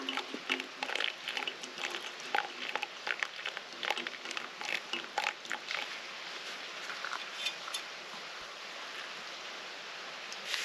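Hot water poured from a metal camping pot into a pour-over coffee drip bag on a mug, with many quick irregular spatters for about the first six seconds; after that only a faint steady hiss.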